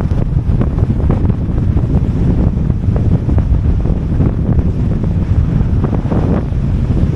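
Strong wind buffeting the microphone in a heavy low rumble, with waves breaking on the beach underneath.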